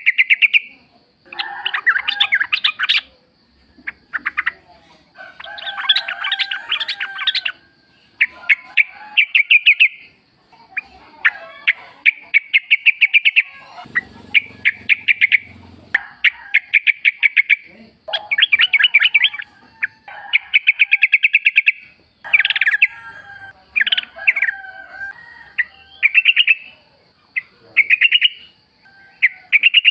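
Yellow-vented bulbul (trucukan) singing: loud chattering phrases of rapid notes, each lasting one to two seconds, repeated with short gaps between.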